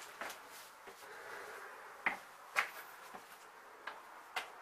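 Footsteps on stone walking back down: a handful of sharp, irregularly spaced steps and scuffs.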